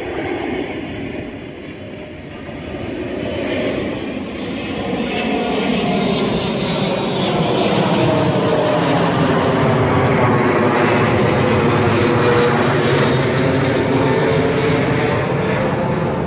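A 350 small-block V8 pickup engine running steadily under an open hood, with no revving.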